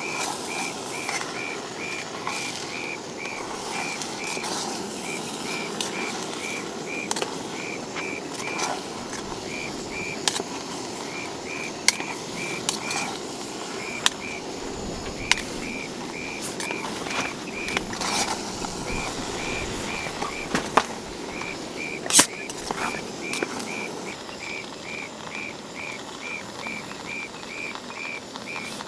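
A fast, regular train of short high chirps, about three a second with a few brief pauses, over a steady hiss, with scattered sharp ticks and taps.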